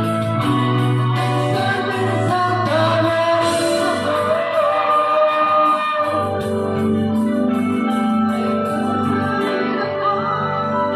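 A man singing into a microphone over amplified music with held chords and a steady beat.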